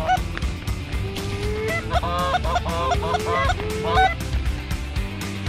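Canada geese honking: one call near the start, then a rapid run of about a dozen short honks in the middle.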